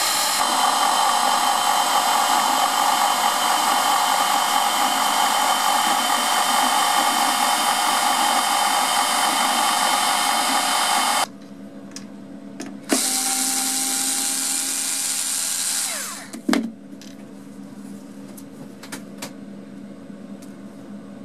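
CNC router spindle running steadily as it mills a Delrin plastic bar. It stops abruptly about eleven seconds in. A click is followed by a shorter run of a small motor, which winds down with a falling pitch, and then light handling clicks.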